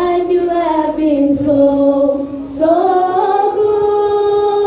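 A woman singing unaccompanied, holding two long drawn-out notes, the second starting about two and a half seconds in.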